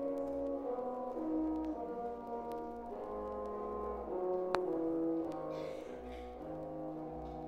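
Background music: a slow melody of held notes on brass-sounding instruments, with a few sharp clicks scattered through it.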